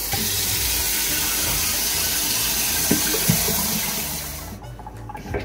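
Kitchen faucet turned on and running hard, the stream pouring over cherry tomatoes in a plastic colander above a stainless steel sink; the water shuts off about four and a half seconds in.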